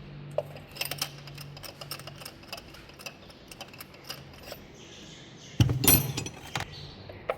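Hand tools clicking and clinking against metal while spark plugs are taken out of the engine, with a louder rattling burst about six seconds in.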